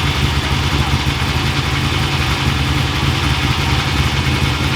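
Off-road race vehicle's engine idling steadily: a deep, even rumble that holds at one speed.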